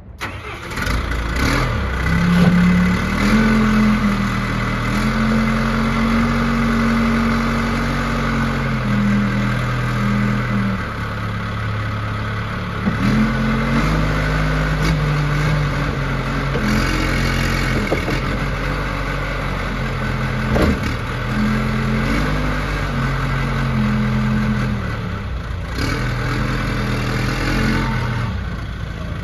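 John Deere 310D backhoe's turbo diesel engine running under the operator's hand, its speed rising and falling repeatedly as the machine is driven and worked. There is a single sharp knock about two-thirds of the way through.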